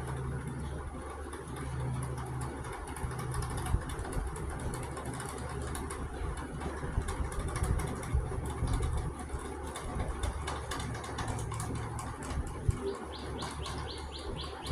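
Bird sounds over a steady low rumble, with scattered sharp clicks, and near the end a quick run of short high chirps at about eight a second.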